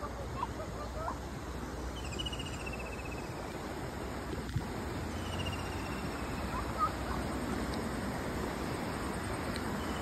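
Short bird chirps near the start and once about seven seconds in, and an insect's rapid high trill twice, over a steady rushing noise of flowing river water.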